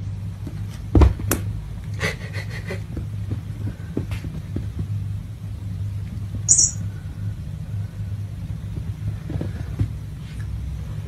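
Hairless Sphynx kittens' paws thudding on the carpet as they hop and stomp about, with a loud thump about a second in and a run of lighter taps soon after, over a steady low rumble. A short high-pitched squeak about six and a half seconds in.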